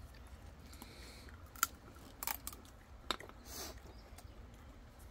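A few faint, scattered clicks and taps, with a brief soft rustle a little after the middle.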